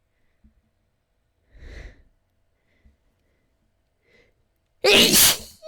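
A woman sneezing: a short breath in about a second and a half in, then one loud, sudden sneeze near the end.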